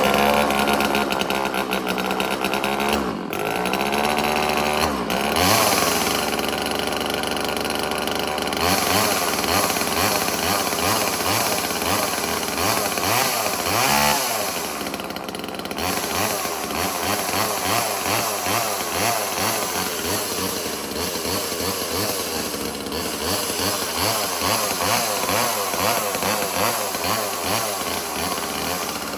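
Homelite XL chainsaw's two-stroke engine running steadily after a cold start, with its revs rising and falling several times.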